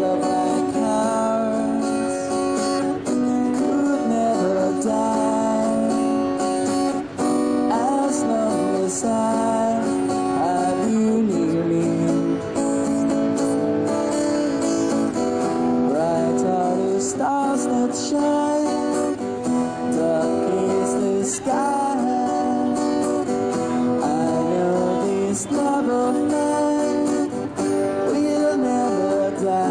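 Acoustic guitar strummed in a song, with steady chords and some sliding notes over them.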